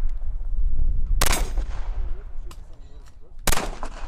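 Canik pistol fired twice, slow aimed shots about two seconds apart, each a sharp report with a short echo trailing after it.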